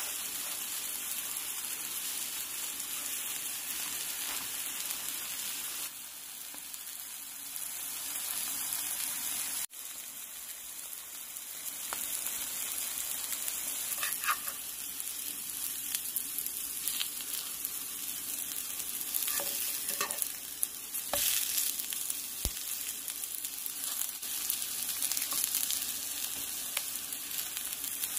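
Lion's mane mushroom slices sizzling steadily as they fry in a nonstick pan. A metal fork clicks and scrapes against the pan now and then, mostly in the second half, as the pieces are turned.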